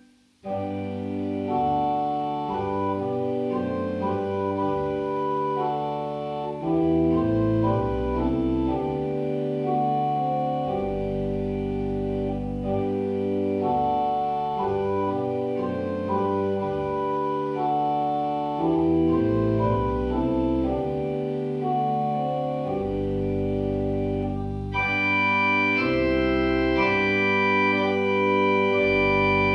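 Organ playing a hymn tune in slow, held chords over a moving bass line, with no singing. It starts after a brief break, and brighter, higher stops come in about 25 seconds in.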